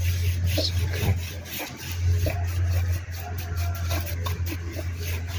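A brush duster sweeping and rubbing over an amplifier's metal case in repeated short strokes, over a steady low hum.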